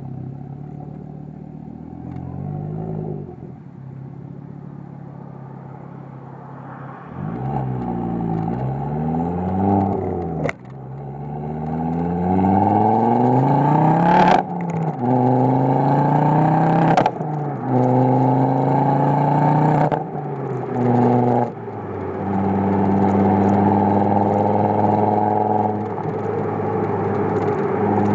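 Ford Focus RS exhaust, on a Stage 1 tune, accelerating hard through the gears. The note rises in pitch, drops back at upshifts about 10, 14 and 17 seconds in with a short crack at each, then settles to a steady cruise.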